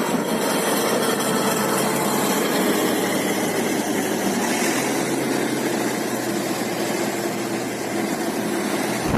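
An engine running steadily under an even, broad hiss.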